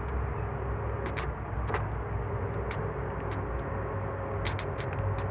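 Small electric fuel pump running with a steady hum, feeding diesel to a freshly rebuilt Kia 2.2 R2 engine for a test start, with a few light clicks and taps over it.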